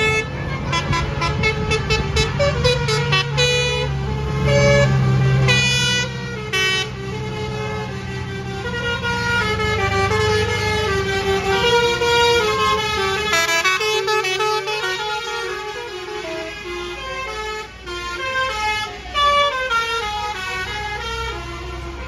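Bus telolet horn, a multi-tone air horn, playing a tune as a rapid run of short notes stepping up and down. Heavy vehicle engines rumble underneath.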